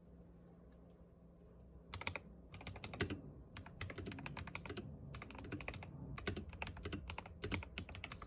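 Typing on a new Gravastar mechanical keyboard as a sound test: low room tone at first, then a run of fast, uneven keystroke clicks starting about two seconds in.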